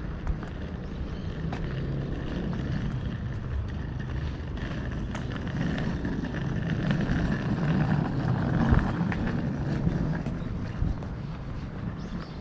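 A steady low engine drone that swells about halfway through and eases off near the end, with faint irregular clicks of footsteps over it.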